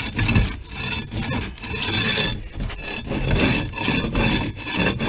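Floor scraper blade scraping dirt, grime and old carpet glue off a boat's floor in repeated rasping strokes.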